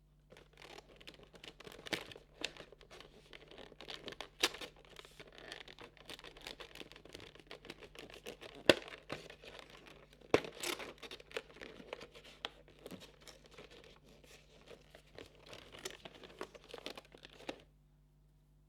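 Packaging being torn open and crinkled by hand as an advent calendar compartment is opened, with steady rustling broken by several sharp snaps. It stops abruptly about a second before the end.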